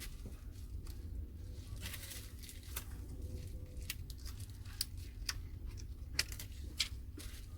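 Small irregular clicks and brief scraping of hand tools on a Samsung Galaxy J2 Prime's plastic frame and screen as it is pried apart. A low steady hum runs underneath.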